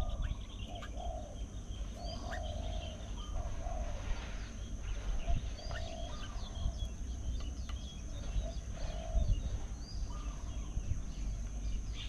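Birds calling outdoors: a short, low-pitched call repeated about once or twice a second, with many higher chirps and twitters over it.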